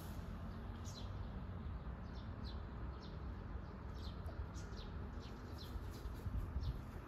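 Small birds chirping: short, high, falling notes repeating about twice a second over steady low outdoor background noise.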